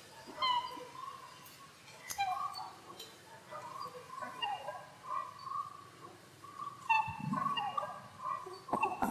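High-pitched animal squeaks and chirps, repeated throughout, with a warbling call near the middle of the range and a few sharp clicks between them. A lower, fuller call comes about seven seconds in.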